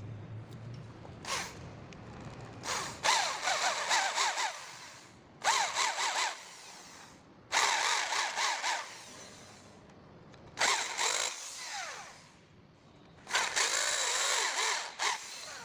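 Electric hand drill running in about five short bursts with pauses between, its motor pitch wavering within each burst, as it drills into a bolt hole in an engine cylinder block during a damaged-thread repair.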